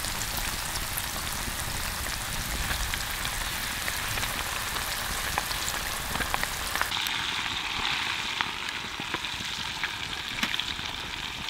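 Fresh-cut potato fries deep-frying in hot animal fat, a steady sizzle full of small sharp pops that changes in tone about seven seconds in.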